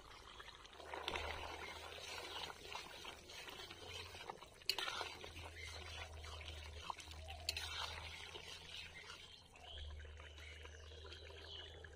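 Vegetable curry simmering in an iron kadai, stirred with a metal spatula that knocks against the pan a few times.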